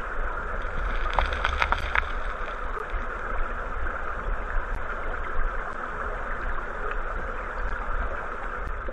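Steady rushing of river current heard underwater, muffled, with a low rumble beneath it and a few sharp clicks between one and two seconds in.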